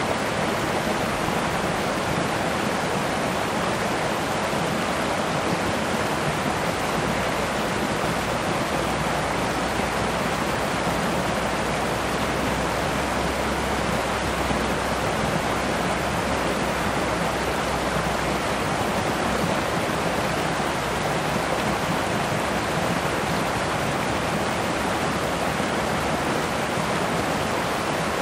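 Mountain stream flowing, a steady rush of water.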